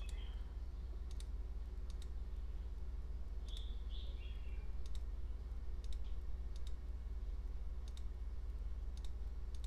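Computer mouse clicking: about a dozen short, sharp clicks, several of them in quick pairs, over a steady low hum.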